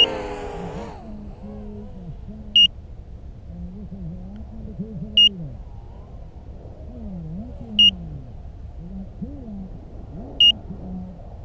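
Short high-pitched beeps repeating about every two and a half seconds from a crashed FPV racing quadcopter's lost-model beeper. Under them, other racing drones' motors whine, rising and falling in pitch.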